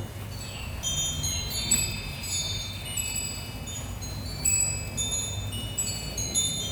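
Wind chime tinkling in a light breeze: many high, clear tones struck at irregular moments, ringing on and overlapping one another, over a low steady rumble.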